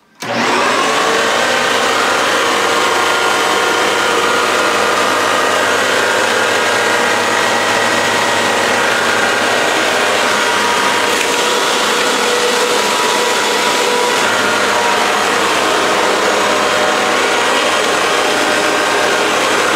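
Upright vacuum cleaner running steadily at full power, its motor a constant loud whine over a rushing of air. It starts suddenly just after the beginning.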